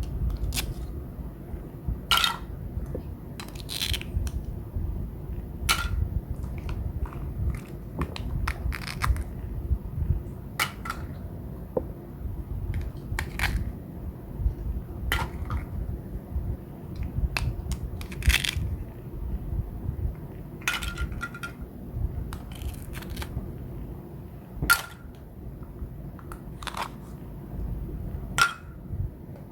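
Irregular clicks, taps and knocks of small hard objects being handled, about one every second, over a steady low hum.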